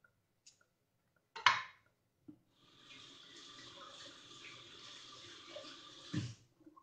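A sharp clack about a second and a half in, then a kitchen tap running steadily for about four seconds, with a low knock just before the water stops.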